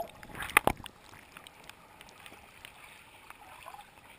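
Underwater sound just after a plunge into the sea: a fading rush of bubbles, two sharp knocks a little over half a second in, then faint muffled water.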